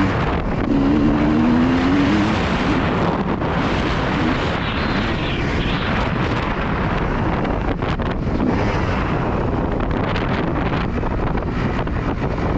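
Heavy wind buffeting on the microphone over a 2003 Honda CR250R's two-stroke engine. The engine rises briefly in pitch about a second in, then is mostly buried under the wind noise.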